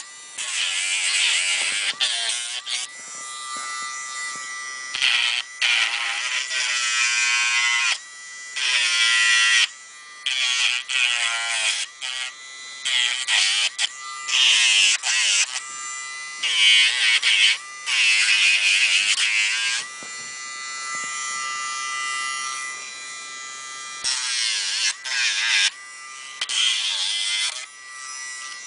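Small handheld Dremel rotary tool with a sanding drum grinding a dog's toenails. The motor whines steadily, and loud rasping stretches of about a second each come again and again as the drum is pressed to a nail.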